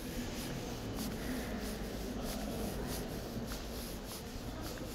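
Metro station platform ambience: a steady low background noise with scattered footsteps and shuffling on a hard floor.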